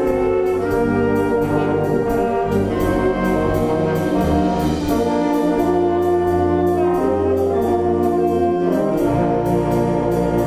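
Wind band playing sustained brass chords over a steady percussion beat of about three light strokes a second, with the bass line shifting beneath.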